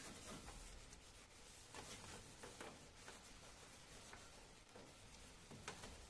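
Faint rubbing and light scraping of a cloth wiped over the stainless steel drip tray of a Wega espresso machine, with a few soft ticks as it catches on the metal.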